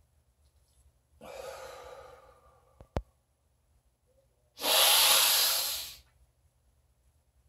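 A man taking one slow deep breath: a softer rush of air lasting about a second and a half, a sharp click about three seconds in, then a louder, stronger rush of air lasting about a second and a half.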